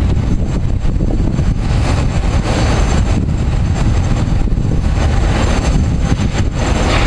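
Jet engine noise from an Airbus A330-200 with Pratt & Whitney PW4000 engines on final approach, a steady hiss that swells slightly, under heavy wind rumble on the microphone.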